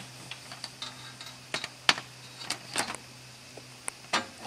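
Starlink Mini antenna being handled and set down into its roof-rack mount: a string of light clicks and knocks, heaviest near the end, over a faint steady low hum.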